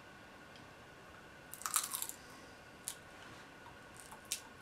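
Biting and chewing through the crisp shell of an edible giant water bug. A cluster of crunchy crackles comes about one and a half seconds in, then single sharp cracks a second later and near the end.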